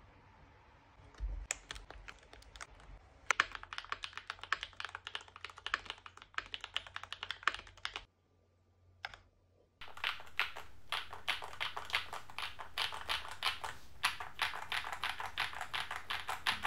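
Fast typing on a mechanical keyboard: a quick run of key clacks that stops about eight seconds in, then after a short pause a second run of typing on the keyboard fitted with GMK Gregory keycaps.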